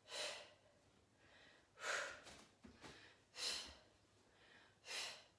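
A woman breathing hard while exercising: four short breaths about a second and a half apart, keeping time with a repeated arm movement.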